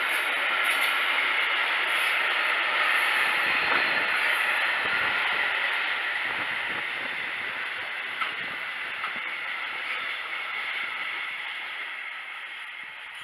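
Freight wagons with tarpaulin-covered hoods rolling past on the rails, a steady rattling hiss of wheels on track that fades as the end of the train moves away. A single sharper click sounds about eight seconds in.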